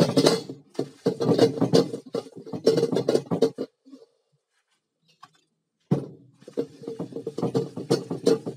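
Paper towel rubbed hard around the inside of a carbon steel wok, a dense run of quick scratchy wiping strokes. The wiping stops for about two seconds in the middle, then starts again.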